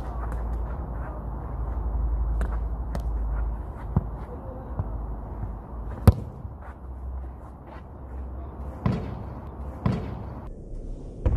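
Football taps lightly a few times as it is juggled at the feet, then is struck hard about six seconds in with a sharp thud. Near the end come three duller knocks as the ball hits the hoop's arched backstop, over a steady low rumble.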